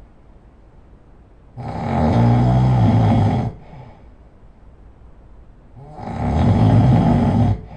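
A person snoring loudly: two long, rattling snores about four seconds apart, each lasting about two seconds, with quiet breathing between them.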